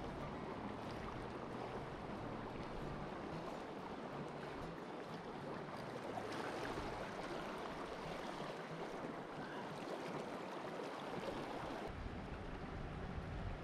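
Steady rush of a flowing river, with a low rumble picking up near the end.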